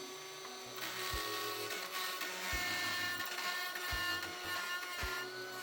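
Pneumatic die grinder running steadily, grinding steel with a high whine. A faint music beat pulses underneath.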